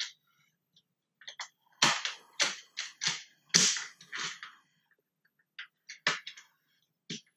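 Plastic parts of a McFarlane Toys Gjallarhorn rocket-launcher replica clicking and knocking as they are handled and fitted together. There is a quick run of sharp clicks and rattles in the middle and a few single clicks near the end.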